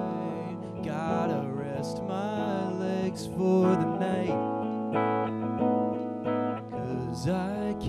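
Live rock band playing: electric guitars, bass and drums, with a trombone line gliding over the chords in the first half before it drops out. Cymbal crashes are heard now and then.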